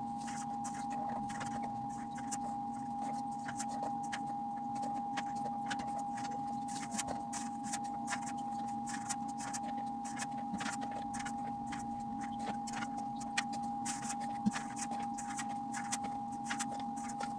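Light, irregular clicks and taps of quail eggs being picked from a plastic tub and set one by one into an incubator's egg tray, over a steady hum.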